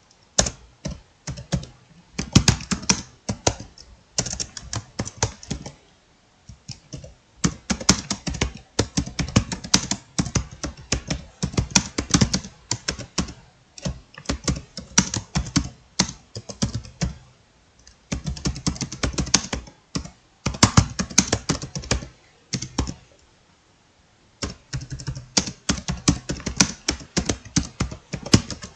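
Fast touch-typing on a computer keyboard: rapid runs of key clicks broken by a few brief pauses of a second or two.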